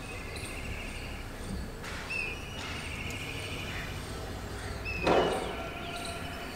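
Outdoor background with a steady low hum and birds chirping and trilling now and then. A short rushing noise about five seconds in is the loudest moment and fades within half a second.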